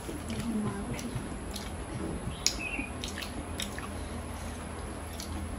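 Close-up eating sounds: fingers mixing and squishing rice with dal and curry on plates, chewing, and many small scattered clicks and smacks.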